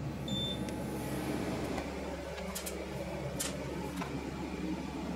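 xTool P2 laser cutter's fans hum steadily after the cut. A short beep sounds just after the start, and a couple of light clicks follow around the middle.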